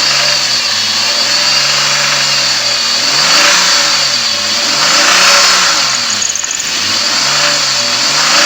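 2006 Chevrolet Trailblazer's 4.2-litre Vortec inline-six revved in several quick blips, the pitch rising and falling each time. The engine is being revved to bring out a knock that comes on under quick acceleration along with a loss of oil pressure.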